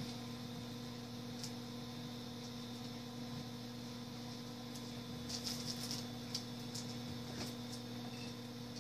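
Steady electrical hum under faint clicks and rustles of trading cards being handled in plastic sleeves and top loaders. The handling noises come in a small cluster about five to six seconds in.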